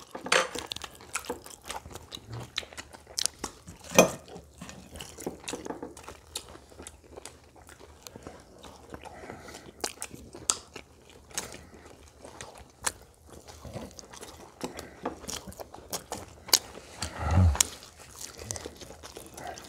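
People at a table biting and chewing crisp fried food such as old-style Korean fried chicken: scattered crunchy bites with short sharp clicks, one louder clack about four seconds in. A brief murmur of a voice comes near the end.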